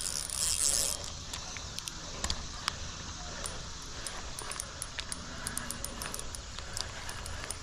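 Fishing reel during the fight with a hooked fish: a short buzz of drag in the first second as the fish takes line, then scattered irregular clicks as the reel is worked.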